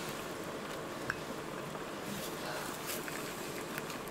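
A steady hiss with a few light clicks of glass and metal, and near the end hot tea starts trickling from a samovar's tap into a glass teacup.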